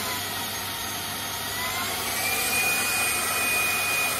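Dibea F20 Max cordless stick vacuum's handheld unit running: a steady rush of air with a motor whine that dips slightly at first, then rises in pitch about two seconds in and holds there, as the power setting is switched up.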